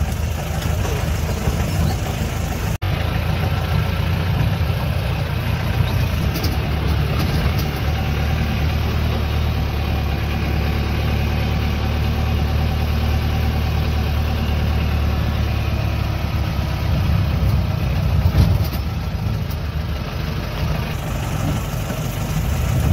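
Jeep engine running at low speed over a rough dirt track, heard from inside the cab as a steady low drone with rattling. The sound cuts out for an instant about three seconds in.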